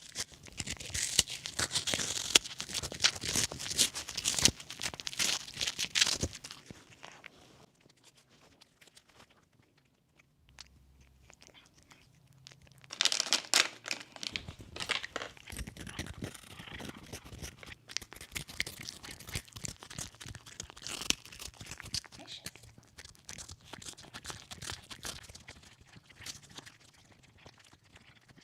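Cats crunching and chewing crunchy freeze-dried chicken treats, a dense crackling crunch. It is loudest for the first six seconds, stops for a few seconds, comes back strongly around the middle, then goes on more lightly and thins out near the end.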